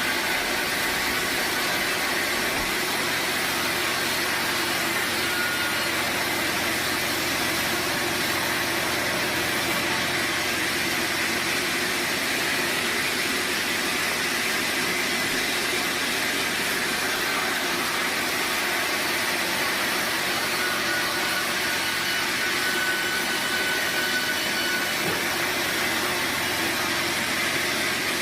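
Sawmill machinery running with a steady, even mechanical noise, and a faint thin whine coming and going in the last third.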